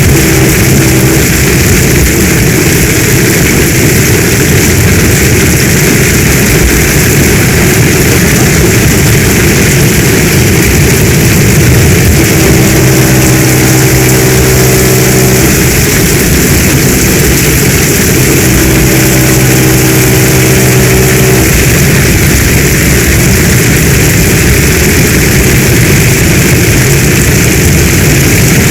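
Heavy rain falling in a steady, loud downpour. A low hum comes in twice over it, about three seconds each time, in the middle.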